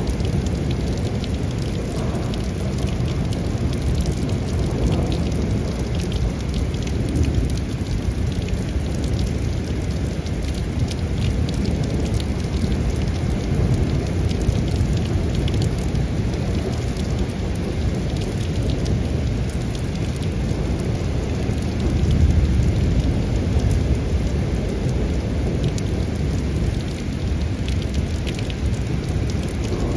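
Steady rain falling through a thunderstorm, with low thunder rumbling underneath. The rumble swells louder about two-thirds of the way through.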